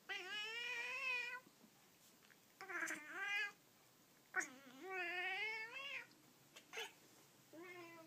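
Persian cat meowing: three long, drawn-out meows with a wavering pitch, then a shorter one starting near the end. They are demanding meows, which the owner takes for impatience at a toy held just out of reach.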